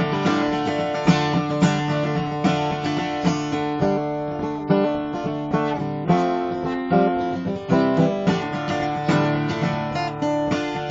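Acoustic guitar playing an instrumental passage, notes plucked and strummed in a steady rhythm.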